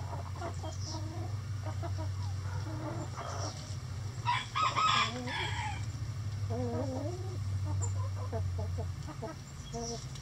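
Hens clucking and murmuring softly, with a rooster crowing once about four seconds in, the loudest sound. A low steady hum runs underneath.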